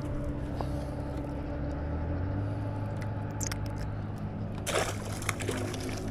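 Electric trolling motor humming steadily, its pitch rising a little about two seconds in, with small clicks from handling the rod and reel and a brief rustling burst near the end.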